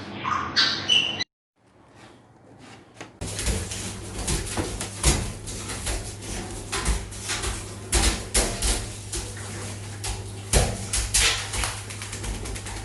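Irregular knocks and bumps over a steady low hum, starting about three seconds in after a short silence.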